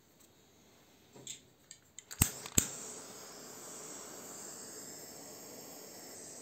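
Handheld butane blow torch being lit: some light handling clicks, two sharp igniter clicks a little past two seconds in, then the steady hiss of the jet flame.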